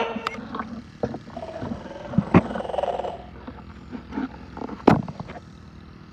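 Handling noise from a rubber toy dinosaur pressed against and moved around the recording phone, with scattered sharp knocks and taps, the loudest about two and a half seconds in and again near five seconds.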